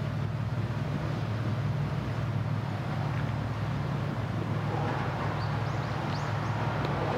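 A steady low engine drone over a hiss of noise, with a few short high chirps about five seconds in and near the end.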